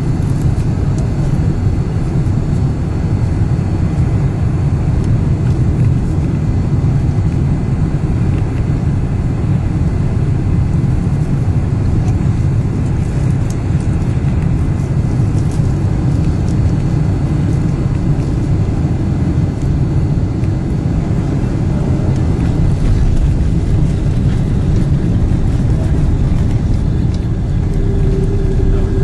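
Inside the cabin of a Boeing 747 landing: a loud, steady low rumble of the engines and rushing air. A steady whine comes in near the end.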